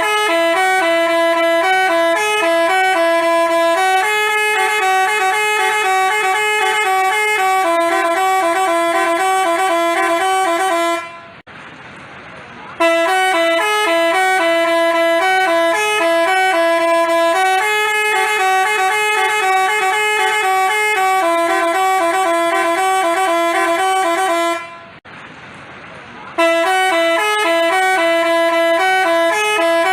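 Telolet bus horn sounding its Basuri tune, a stepped multi-note melody. The phrase of about eleven seconds plays three times, with a pause of about a second and a half before each repeat.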